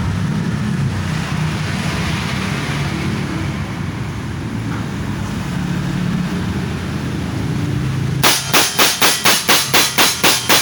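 Semi-automatic PCP air rifle fired in a rapid string, about four sharp shots a second, starting about eight seconds in, emptying the magazine. Before that there is only a steady low rumble.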